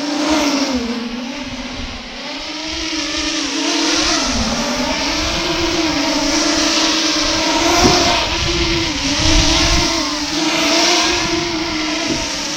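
FPV quadcopter's motors and propellers whining steadily, the pitch dipping and climbing as the throttle is worked, over a rough low rumble.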